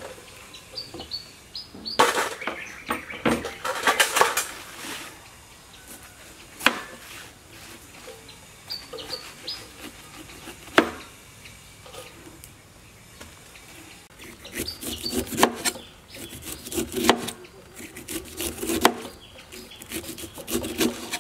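A whole pineapple being prepared by hand: rustling and scraping as its spiky crown leaves are handled, then a knife cutting off the tough rind against a wooden chopping board, in a run of irregular scraping strokes with a couple of sharp knocks of the blade on the board. Faint bird chirps now and then.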